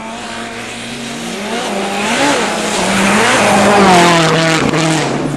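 Rally car engine at high revs coming towards the listener and passing at speed: the engine note climbs from about a second in, is loudest about four seconds in, then drops in pitch as the car goes by.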